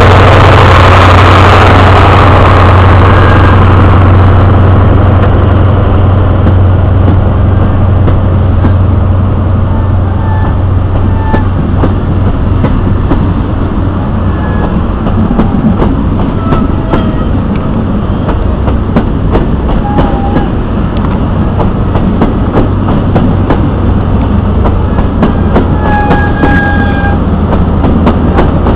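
High Speed Train passing at low speed, with its Class 43 diesel power car going by at the start and drowning out all else, then Mark 3 coaches rolling past. A steady low engine drone carries on under repeated wheel clicks over the rail joints and a few brief faint wheel squeals.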